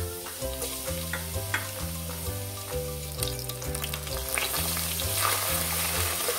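Ginger and garlic paste sizzling in hot oil in a steel pan, stirred with a wooden spatula that scrapes and clicks now and then. The sizzle grows louder from about four seconds in.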